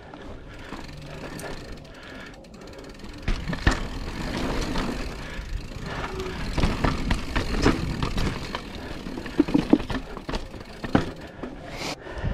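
Mountain bike rattling over a rough trail, with tyre noise and many sharp knocks and clatters that get louder about three seconds in.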